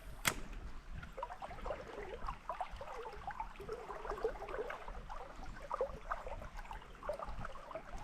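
Small river water gurgling and babbling over rocks, with a single sharp click just after the start.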